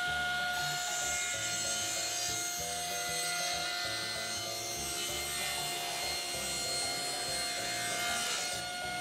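Table saw ripping a wooden board lengthwise along the fence, the spinning blade giving a steady whine. The blade bites into the wood about half a second in and cuts steadily until near the end.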